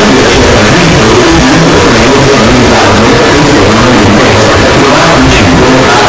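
Mock emergency alert alarm, extremely loud and heavily distorted into harsh, clipped noise, with a wavering alarm tone buried underneath.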